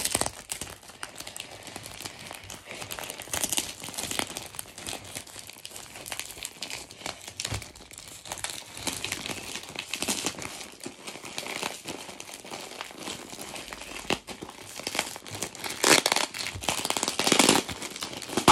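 Plastic and paper parcel wrapping crinkling and rustling as hands pick at it and pull it open, with louder crackling bursts near the end.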